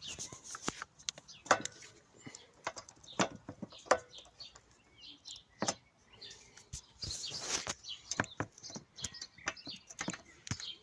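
Scattered clicks and knocks of metal parts and tools being handled while a scooter's rear shock absorber is fitted, with a longer scrape about seven seconds in. Birds chirp faintly in the background.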